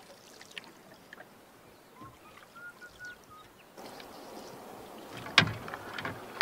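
Canoe paddle stroking through calm lake water, with water trickling and dripping off the blade, louder in the second half. A sharp knock comes about five and a half seconds in, and another near the end.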